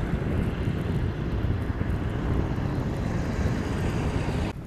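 Wind buffeting the microphone over a steady low rumble of idling truck engines, cutting off abruptly near the end.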